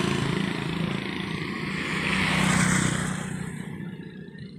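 A motor vehicle passing by on the road, its engine hum and road noise swelling to a peak about two and a half seconds in, then fading away.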